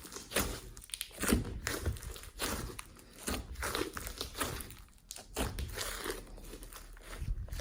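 Hands squishing, kneading and stretching glossy slime mixed with clay, glitter and foam. It gives irregular sticky crackles, squelches and pops, several a second.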